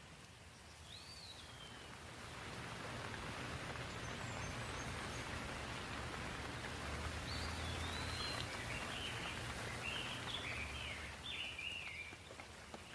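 Rain falling in a steady rushing hiss that swells over a few seconds and eases off near the end, with small birds chirping over it, one call about a second in and a run of quick chirps in the second half.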